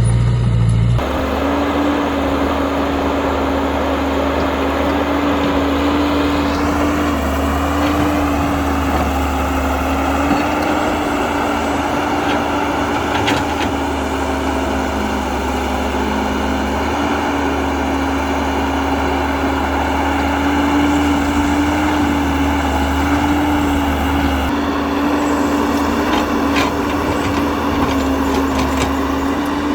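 Electric motors of a Huina 1592 radio-controlled toy excavator running with a steady whine that shifts slightly in pitch now and then.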